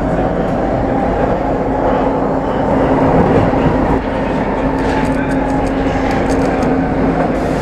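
Brussels STIB metro train running, heard from inside the carriage: a steady rumble with a constant hum, and a run of light clicks in the second half.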